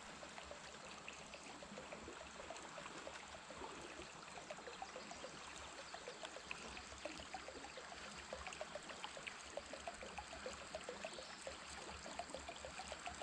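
Creek water trickling and babbling, faint, with many small irregular plinks.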